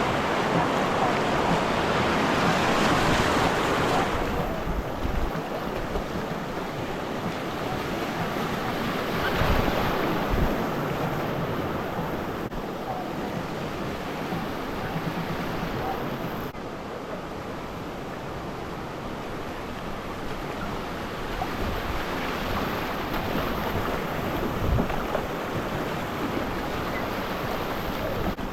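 River water rushing and splashing around a raft, louder and hissier for the first four seconds, then a steadier, softer wash, with some wind buffeting the microphone.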